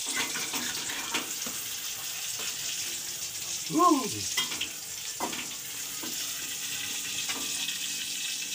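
Hot oil sizzling steadily in a wok as fried chili and shallots are ladled out onto a clay plate, with scattered clicks of the metal ladle against the wok and plate. A brief voice sound about four seconds in is the loudest moment.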